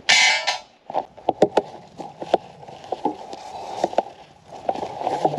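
Boots crunching and shuffling on packed snow and ice, with scattered short knocks. It opens with a brief shrill squeal, the loudest sound of the moment.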